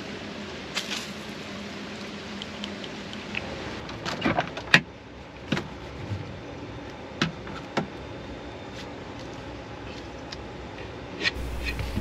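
Scattered knocks, clicks and clatter of gear being handled inside the camper van, with the loudest knock a little before the middle, over a steady background hiss.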